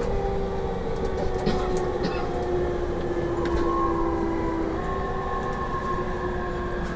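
Inside an E231 series 1000 commuter train on the move: the VVVF inverter and traction motors give several whining tones that slowly fall in pitch as the train slows, over the rumble of wheels on rail.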